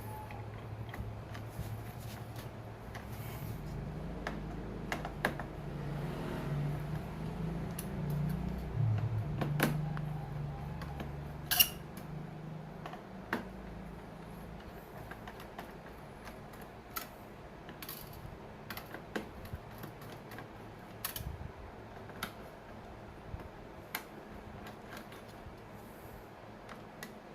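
Scattered light clicks and metallic taps of a server CPU heatsink being unscrewed and lifted off, with a low rumble of handling in the middle and one sharper click about eleven seconds in.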